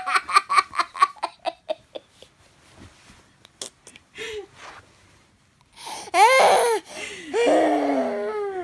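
A young girl laughing hard: a quick string of giggles that fades over the first two seconds, then after a quieter stretch two long, loud squeals of laughter, the last falling in pitch.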